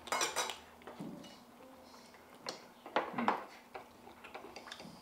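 Soft, scattered clatter of dishes and utensils at a dining table while people eat, in a few short bursts: the most distinct just after the start and about three seconds in.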